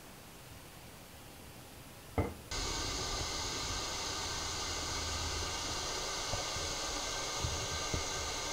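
A single click, then a steady hiss from a stainless kettle heating over a homemade tuna-can alcohol stove.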